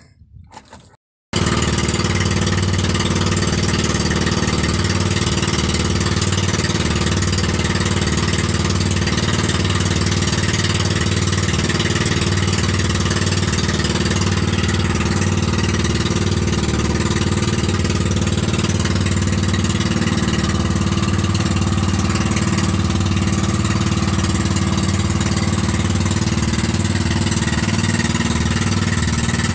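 Small engine of an outrigger fishing boat running steadily as the boat travels, cutting in abruptly about a second in.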